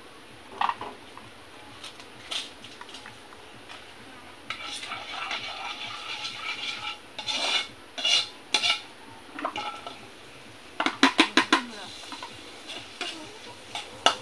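A metal utensil clanks and scrapes in a metal cooking pan, with a few single knocks, a stretch of ringing scraping in the middle, and a quick run of about six taps near the end.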